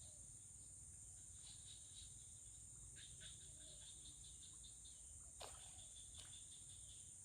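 Near silence with a faint, steady, high-pitched insect drone, and a few soft clicks.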